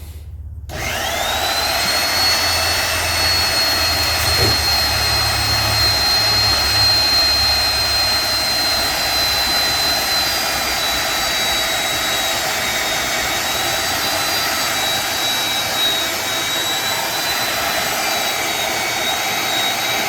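Electric angle grinder spinning up with a quick rising whine, then running with a steady high-pitched whine and hiss, its pitch sagging slightly in the second half.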